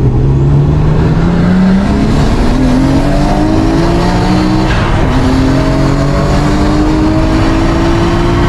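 Nissan Skyline R32 GT-R's twin-turbo straight-six pulling hard under acceleration, heard from inside the cabin, its pitch climbing steadily, dropping back at a gear change about five seconds in, then climbing again.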